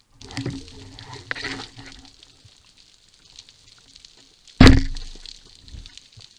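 Matador 76 band-powered speargun fired underwater about four and a half seconds in: one sharp crack with a short low tail as the shaft is released at a brown meagre (corvina). Fainter underwater noises from the diver moving come in the first two seconds.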